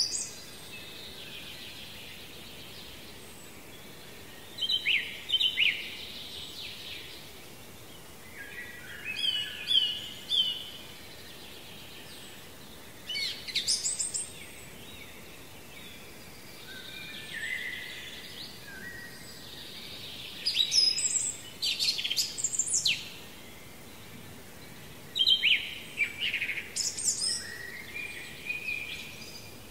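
Birdsong: short, varied phrases of whistled and chirping notes, one every four to five seconds, over a steady quiet background hiss.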